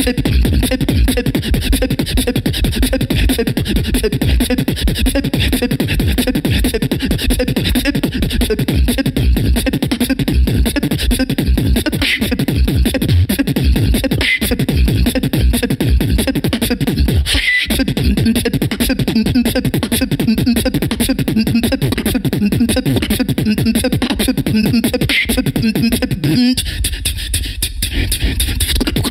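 Solo human beatboxing into a handheld microphone: a fast, dense run of vocal kick, snare and hi-hat sounds over a low held hummed tone, the texture changing about three seconds before the end.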